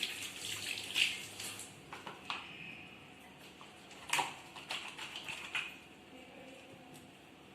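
Scattered light clicks, taps and rustling of handling, densest in the first second and a half and again from about four to five and a half seconds in, then only faint room noise.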